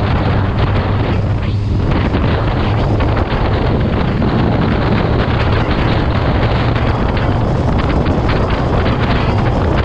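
Strong wind rushing over the microphone on top of a steady, unchanging low engine drone from a vehicle on the move.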